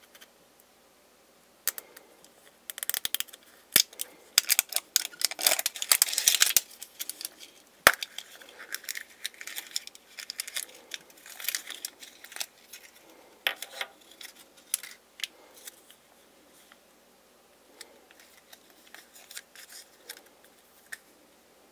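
A plastic surprise capsule being twisted open and its foil packet crinkled by hand: a dense run of clicks and crackles from about two to seven seconds in, then scattered lighter clicks and rustles.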